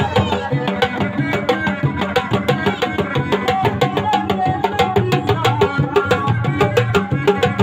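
A reak ensemble of dogdog drums, a set of four, struck by hand and with sticks in a fast, interlocking rhythm of rapid strokes. A wavering melody line runs above the drums.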